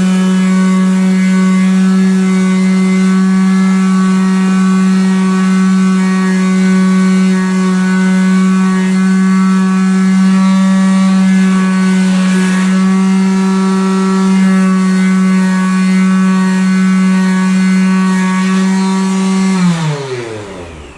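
Handheld power sanding tool running at steady high speed with a constant whine while sanding the truck's steel frame, then spinning down, its pitch falling, near the end as it is switched off.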